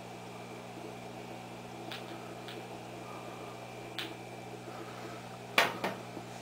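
Old vacuum-tube television set humming steadily in a quiet stretch of its programme sound, a low hum of several even tones under a faint hiss. A few faint clicks, then two sharper clicks near the end.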